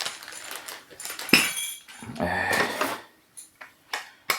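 Metal espresso-machine accessories clattering and clinking as they are handled out of the box, with a sharp knock about a second in and another near the end. A low pitched sound lasting about a second comes in near the middle.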